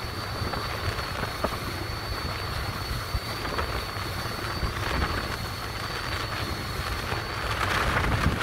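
Small motor yacht under way: wind buffeting the microphone and water rushing along the hull, with a thin steady high whine.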